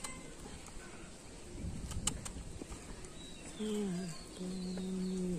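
A kitchen knife scoring the skin of a raw green mango, with a couple of sharp clicks about two seconds in. A louder, drawn-out pitched call sounds in the second half, held steady for about a second near the end.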